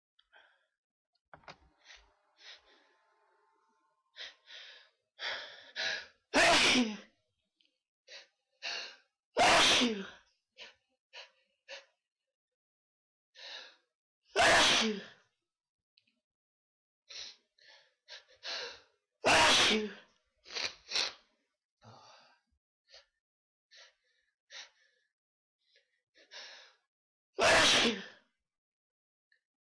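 A person sneezing five loud times, spaced roughly three to eight seconds apart. Each sneeze is preceded by a run of short, catching in-breaths.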